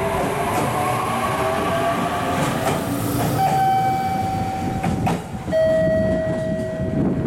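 An 817 series electric train pulling away, its motors whining up in pitch over the rumble of wheels on rail. Then a steady horn blast of about a second and a half, followed by a second, slightly lower blast.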